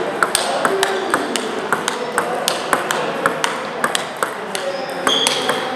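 Table tennis balls clicking off paddles and tables, quick irregular knocks from several rallies at once.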